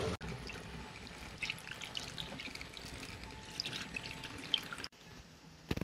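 Milky vaccine water poured from a plastic jug into a plastic funnel, splashing and trickling down into a large plastic water bottle, with two brief dropouts.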